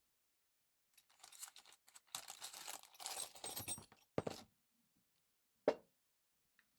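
Hands handling and fitting small parts on a mini belt sander: irregular crinkling and scraping, then a knock and a single sharp click.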